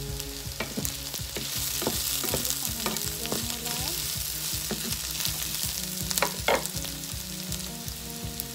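Sliced onions, dried bitter gourd and green chillies sizzling in hot oil in a non-stick frying pan while a wooden spatula stirs them, with repeated light knocks and scrapes of the spatula on the pan and two louder knocks a little after six seconds in.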